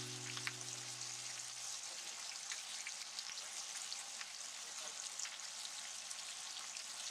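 American shad steaks frying in oil in a pan: a faint, steady sizzle with scattered small crackles. A music fade dies away over the first couple of seconds.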